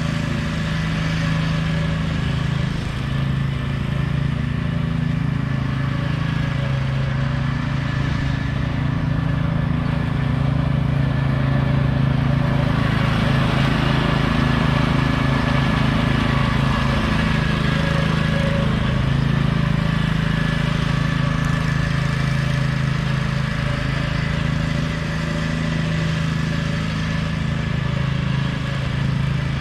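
Troy-Bilt riding lawn mower's engine running steadily under load while mowing, with a hissier whir that grows stronger for several seconds in the middle.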